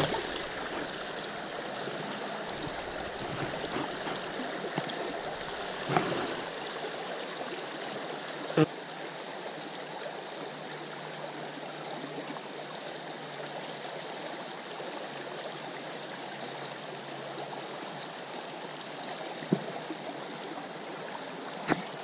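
Creek water running steadily, with a few short, sharp knocks now and then, the loudest a little over a third of the way in.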